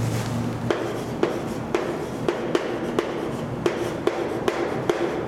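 Chalk writing on a chalkboard: a steady scratchy rasp broken by sharp, irregular taps as each stroke of the letters starts.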